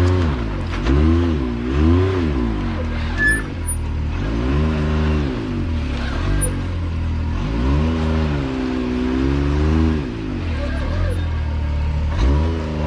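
Can-Am Maverick X3 Turbo side-by-side's engine revving in a series of throttle surges, each rising and falling in pitch, while the machine crawls up a rocky waterfall ledge under load.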